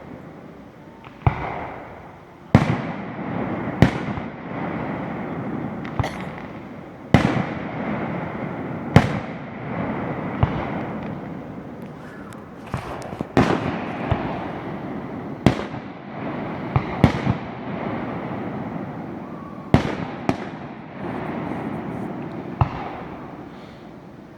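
Aerial fireworks display: a run of sharp shell bursts going off at irregular intervals, a dozen or so, each followed by a long rumbling echo.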